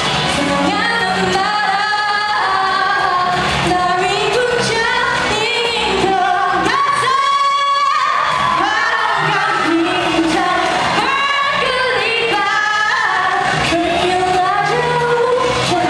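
A woman singing a Malay song solo over backing music, with a long note held with vibrato about halfway through.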